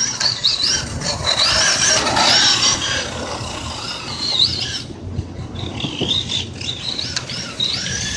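Team Associated ProRally RC rally car running on a 2S LiPo battery, its electric motor and drivetrain whining in short swoops that rise and fall in pitch as the throttle is worked.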